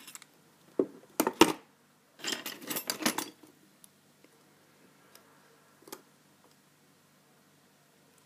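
Small metal clicks and rattles of a padlock and lock-picking tools being handled: a few sharp clicks about a second in, a rattling cluster soon after, and one more click near the six-second mark.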